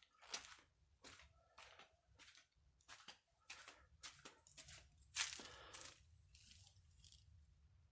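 Footsteps crunching on sandy ground, about two a second, with a louder, longer rustle about five seconds in before they stop.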